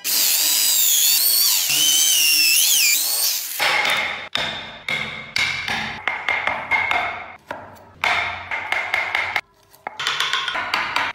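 Electric drill boring into a block of wood, a high whine that wavers in pitch under load for about three and a half seconds. Then a hand chisel cutting out the wood in a quick, irregular series of sharp knocks and scrapes, with a short pause near the end.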